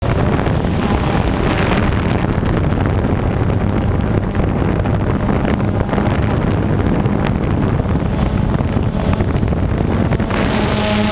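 DJI Phantom quadcopter's propellers and wind buffeting the onboard camera's microphone: a loud, steady rushing noise, with a steady motor hum coming through near the end.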